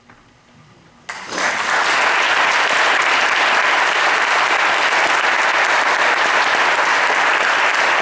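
Audience applauding: after a brief hush, clapping breaks out suddenly about a second in and goes on steadily.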